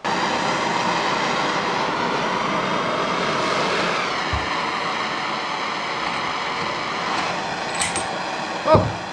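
Handheld gas blowtorch burning with a steady hiss, heating a bearing's inner race so it expands enough to slide onto an axle half shaft.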